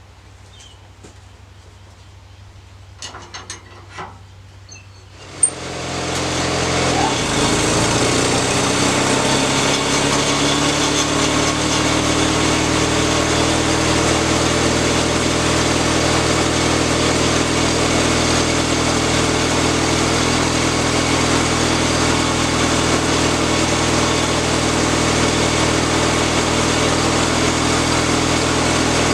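A small petrol engine running at low speed, then after a click about five seconds in it speeds up over a couple of seconds and runs loud and steady at working speed.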